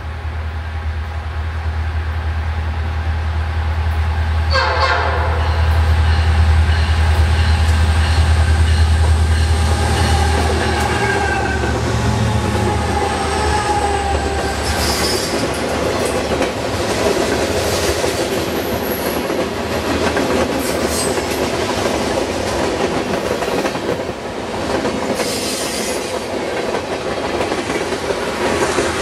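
Freight train passing close by. Its diesel-electric locomotives run loud and low for roughly the first ten seconds, then a long string of freight cars rolls past with clickety-clack over the rail joints, some wheel squeal and occasional clanks.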